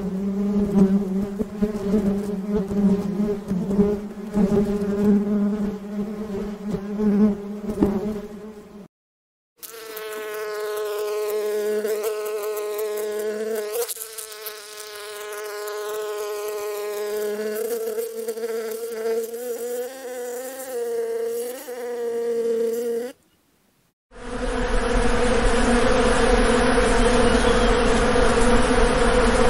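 Bees buzzing in three separate recordings, broken by two brief silences about 9 and 23 seconds in. The first buzz pulses unevenly, the middle one wavers up and down in pitch, and the last is a steady, dense buzz with hiss.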